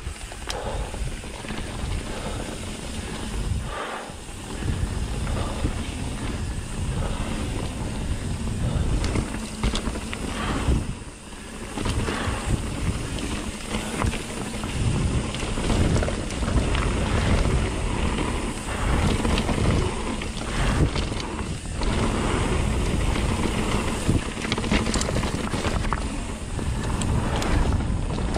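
Wind buffeting the microphone of a mountain biker's ride camera at speed, mixed with the bike's tyres rolling over the trail.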